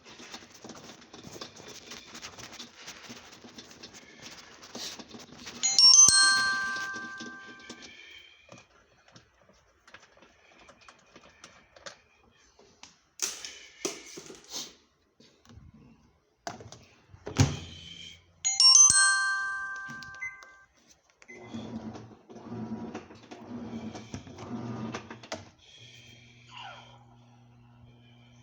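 Clatter and knocks of work on a washing machine, with two bell-like rings that each die away over about two seconds; a low steady hum starts near the end.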